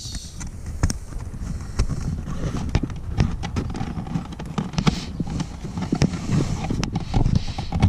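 Irregular clicks and knocks of a thin power cable being pushed by hand into plastic clips under the car's dashboard trim, with rustling handling noise.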